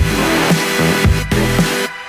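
Electronic backing music with a steady, heavy bass beat, which cuts out briefly near the end.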